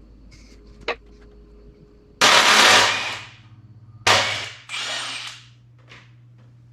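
A power tool run in three short bursts of about a second each, the last two close together, while bolts are taken out of an engine during its teardown. A light click comes about a second in.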